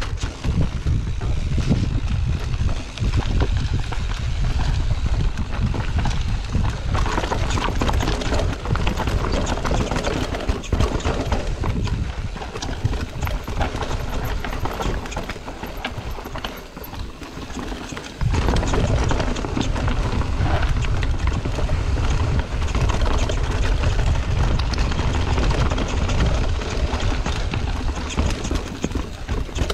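Mountain bike riding fast down a rocky dirt singletrack, heard from a camera on the rider: tyres rattling over rocks and dirt and the bike clattering, under heavy wind rumble on the microphone. The rumble eases for a few seconds in the middle and comes back strongly about two-thirds of the way through.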